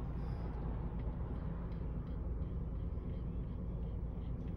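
Car's low, steady running rumble heard from inside the cabin.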